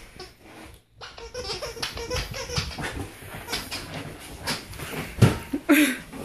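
A corgi playing with a plush toy: scuffling and rustling with some dog sounds, and a thump about five seconds in.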